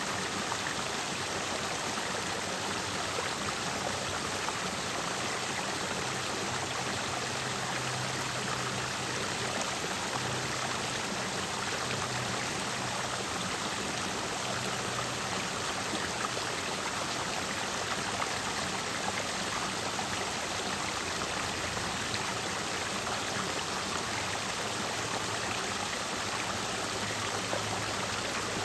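Clear mountain stream flowing over rocks, a steady, even rush and babble of water.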